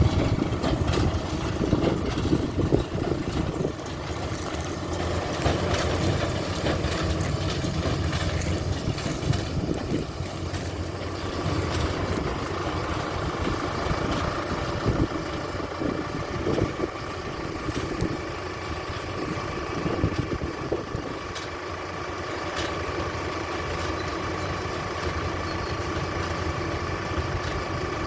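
Fendt 712 tractor running steadily while it drives a big square baler pressing straw, with occasional short knocks. About a third of the way in, a steady whine joins the engine sound.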